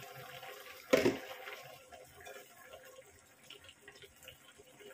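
A pot lid is set down with a single clank about a second in. After it, adobo sauce with chicken and eggs simmers softly in the open wok, bubbling and popping faintly as it reduces.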